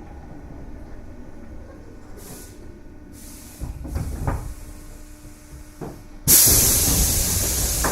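Tobu 8000 series electric train standing at a station: a few knocks, then about six seconds in a sudden loud hiss of compressed air that holds to the end, typical of the pneumatic door engines working.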